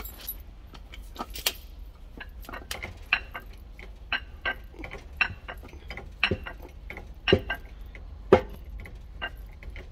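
Irregular metal clicks and clinks while a water pump is being assembled, with three heavier knocks about a second apart late on, the loudest near the end.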